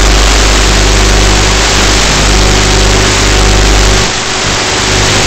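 Loud, steady hiss of static with a low electrical hum, from the audio channel of an analog FPV video link recorded by the goggles. The low hum drops out briefly about four seconds in.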